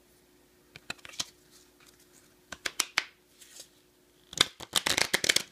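A brand new deck of game cards being handled and shuffled: a few light snaps of cards about a second in and again near three seconds, then a quick dense flurry of card flicks near the end.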